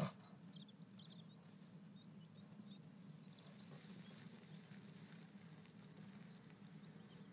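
Faint, high-pitched peeping of button quail chicks: many short cheeps scattered throughout, over a steady low hum. A single sharp click comes right at the start.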